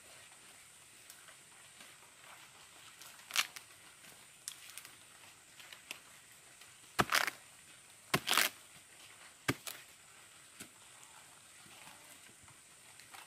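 Rotten, wet sago palm pith being broken and pulled apart by hand and machete while digging for sago grubs: a few short crunching, tearing sounds, loudest about seven and eight seconds in.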